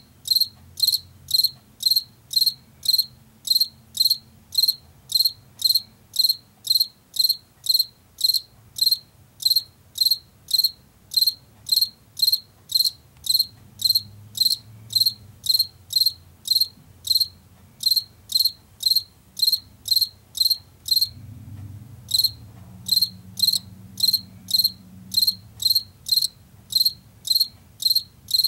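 Male field cricket's calling song: a steady series of short, high-pitched chirps, about two and a half a second, made by rubbing its forewings together. The chirping breaks off for about a second roughly three quarters of the way through, then carries on.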